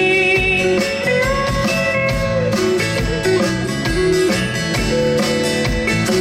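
Live country band playing an instrumental break with no vocals: a lead guitar plays held, bending notes over bass and a steady beat.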